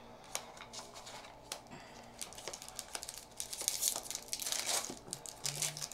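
Foil Magic: The Gathering booster pack wrapper crinkling and tearing open by hand, after a few light clicks; the crinkling is densest and loudest about two-thirds of the way in.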